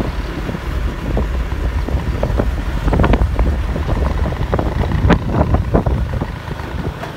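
Low rumble of a vehicle driving along a mountain road, with wind buffeting the microphone. Clusters of knocks and rattles come about three seconds in and again around five to six seconds.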